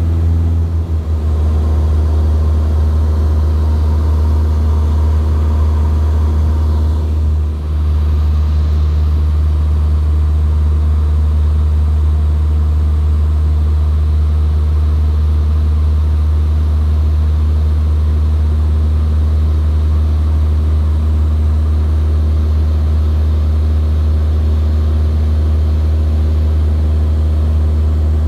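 Cessna 172's piston engine and propeller droning steadily in flight, heard from inside the cabin, with a brief dip about seven seconds in.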